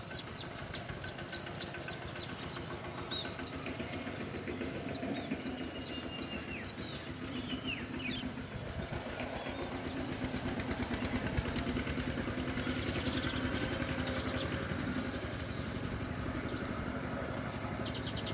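An engine running steadily with a fine, even pulse, growing somewhat louder past the middle. Small birds chirp in quick high series over it in the first few seconds, with a few thin whistles after.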